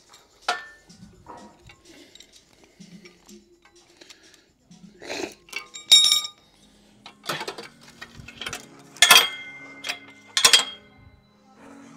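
A run of sharp metallic clinks and clanks, about seven strikes at uneven intervals, a few ringing briefly; the loudest come about halfway through and near the end.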